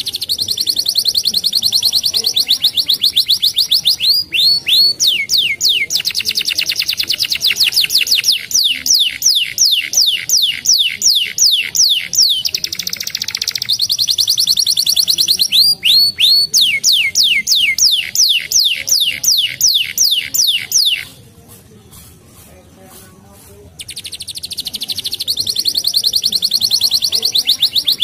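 Domestic canary singing: long runs of fast trills and rapidly repeated sweeping notes. A pause of about three seconds comes near the end, then the song starts again.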